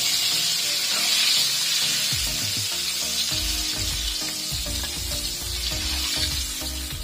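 Flour-battered shrimp deep-frying in hot oil in a wok: a steady sizzle that eases off slightly toward the end.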